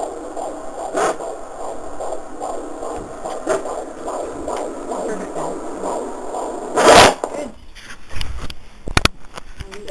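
Fetal heartbeat on an ultrasound Doppler, a fast, even run of pulses. About seven seconds in a loud rush of noise cuts across it, followed by scattered crackles and knocks.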